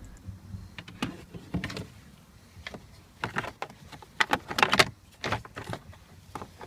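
Plastic steering column cowls being pulled apart and handled: irregular clicks, creaks and short scrapes of hard plastic, the loudest cluster about four to five seconds in.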